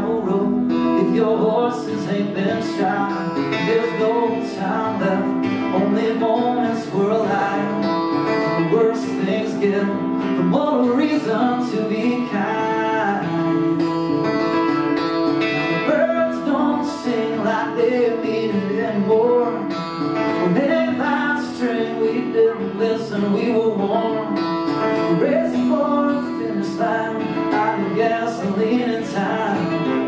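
Steel-string acoustic guitar played live in a steady rhythm, as the accompaniment to a song.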